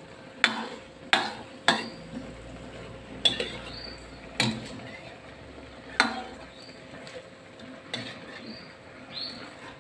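Metal spatula stirring and tossing food in a wok, scraping the pan with several sharp clanks at irregular intervals.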